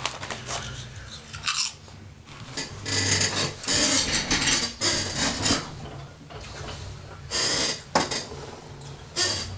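A foil snack-chip bag crinkling and rustling in irregular bursts as a hand rummages in it.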